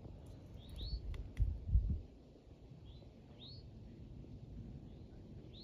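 A songbird calling outdoors: a short two-part chirp that sweeps up and down, repeated about every two and a half seconds. A low rumble, like wind or handling on the microphone, is the loudest sound about a second and a half in, with a few faint clicks just before it.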